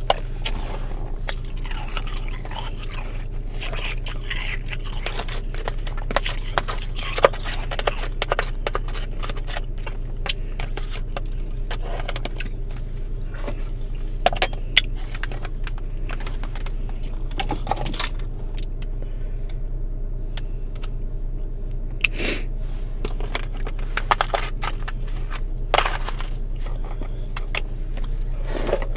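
Close-up mouth sounds of powdery freezer frost being eaten: many short crunches, crackles and scrapes at irregular intervals, over a steady low hum.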